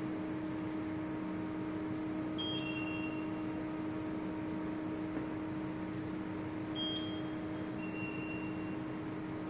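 Digital Rockwell hardness tester running through a test cycle: a steady electric hum, with two short electronic beeps, one about two and a half seconds in and another near seven seconds.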